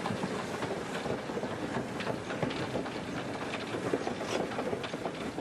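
Moving steam-hauled train: a steady rumble of wheels on rail with scattered clanks and knocks from the running gear.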